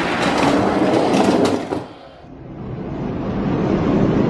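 Die-cast toy monster trucks rolling down an orange plastic Hot Wheels drag track: a steady rattling rumble over the track sections, with a few sharp clacks about a second and a half in. The rumble drops away about two seconds in and then builds again as trucks roll down once more.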